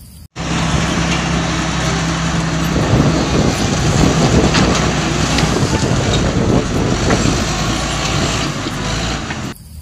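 Crawler bulldozer's diesel engine running, joined from about three seconds in by the cracking and crashing of brush and branches being pushed over by its blade.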